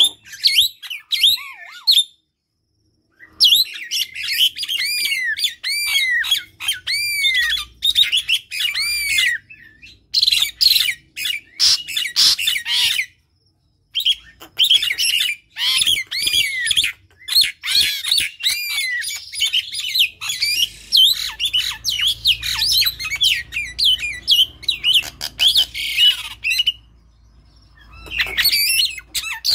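An Asian pied starling (jalak suren) and a myna calling loudly at close range. The calls mix repeated arched, rise-and-fall whistles with harsh squawking chatter. They come in long bursts broken by brief pauses about two seconds in, around thirteen seconds and shortly before the end.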